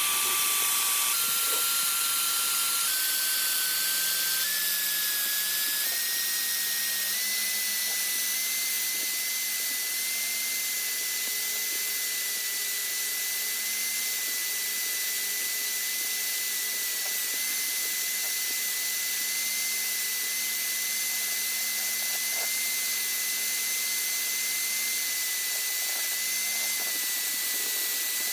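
A small electric power tool whining as it runs. Its motor speed steps up several times over the first few seconds and then holds steady, over a continuous high hiss of abrasive work.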